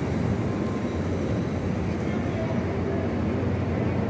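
Steady low rumble and hum of a passenger train standing at the platform.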